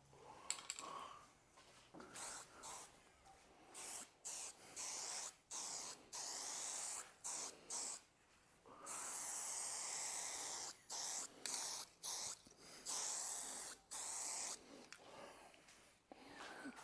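Aerosol spray-paint can hissing in about a dozen short bursts, each from under a second to about two seconds long, as paint is sprayed on.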